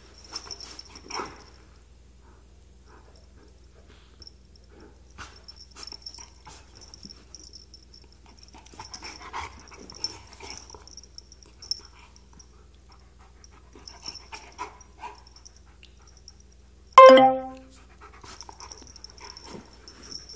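A Siberian husky and a cat play-wrestling: soft scuffling and mouthing noises, broken by one short, loud pitched cry about three quarters of the way through.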